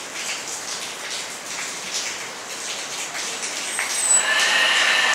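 A scuba tank valve cracked open about four seconds in: high-pressure air rushes through the fill hose into a PCP air rifle's reservoir with a steady hiss and a held whistling tone. Before that come light clicks and handling knocks as the hose and tank are set up.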